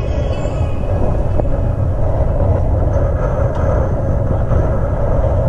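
Steady low rumble of a fishing boat's engine running, with wind and water noise over it.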